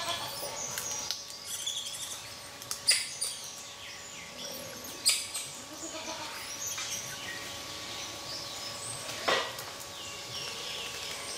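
Short high chirping calls through the whole stretch, with three sharp crackles about 3, 5 and 9 seconds in.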